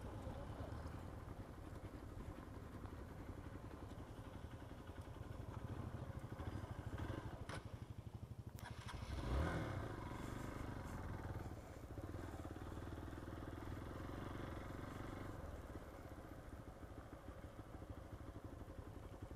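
Motorcycle engine running steadily while riding, with a brief louder swell about halfway through.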